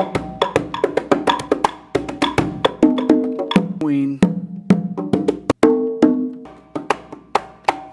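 Fisher-Price toy conga drums sounding a quick run of electronic drum and wood-block hits, each with a short pitched ring. About four seconds in, a pitched cartoon sound slides down in pitch.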